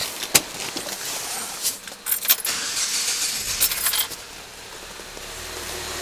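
Keys jingling and clicking at the ignition, then the 2008 Saab 9-3's 2.0-litre turbo four-cylinder engine starts and settles into a steady low idle about four seconds in. It runs smoothly despite a stored random-misfire code.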